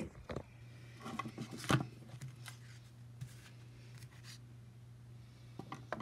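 A cardboard prop skull being handled: scattered rustles and light taps, the sharpest about two seconds in, then a few more taps near the end as it is set down on a wooden desk.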